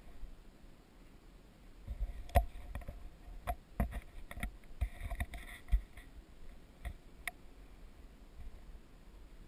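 Wind buffeting the microphone, with scattered small clicks and knocks, most of them between about two and seven seconds in.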